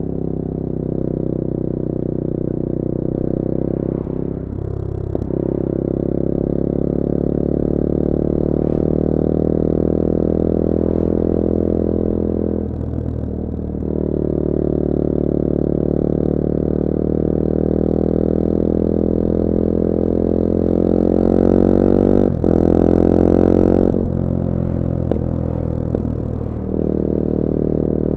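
2021 Bullit Hero 250's CF Moto 250cc four-stroke single-cylinder engine running under way at steady throttle. The engine note drops briefly a few times, at gear changes or throttle lifts, and rises in pitch and loudness before one sharp break in the second half.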